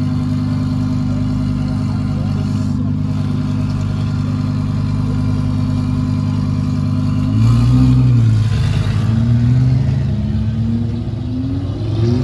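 Audi R8's 5.2-litre V10 idling with a steady, deep exhaust note. About seven and a half seconds in it gets louder and its pitch rises and dips in steps as the car moves off.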